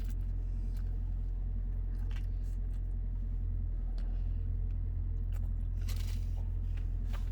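Steady low rumble of a car's running engine heard inside the cabin, with a few brief crunches and clicks of someone eating.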